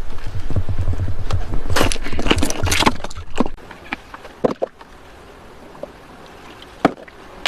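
Footsteps and knocking for about three seconds, then quieter, with a few isolated sharp clicks.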